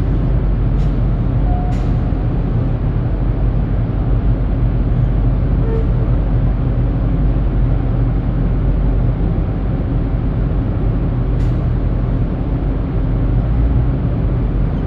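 Semi truck's diesel engine idling steadily, with a few short, sharp hisses or clicks over it.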